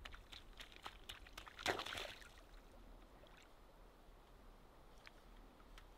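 Faint splashing and squelching as a dog wades through shallow, marshy water, with scattered small splashes and one louder splash about two seconds in, then only an odd faint drip.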